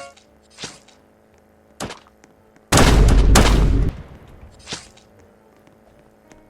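Edited-in sound effects: a few short bangs, and about three seconds in a loud, noisy blast lasting just over a second, like gunfire.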